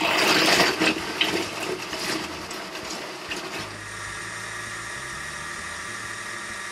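Kenwood food processor chopping raw cashews and pitted dates. It is loud and uneven at first, with the pieces clattering against the blade and bowl, then settles after about three and a half seconds into a steady motor whir as the mixture turns to fine crumbs.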